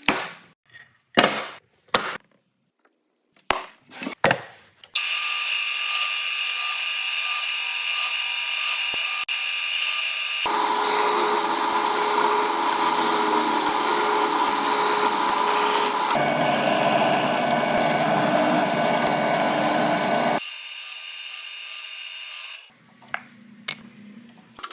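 A few sharp clicks and knocks, then a power tool cutting wood, running steadily for about fifteen seconds in three abruptly joined stretches of different pitch. It drops to a quieter hum near the end.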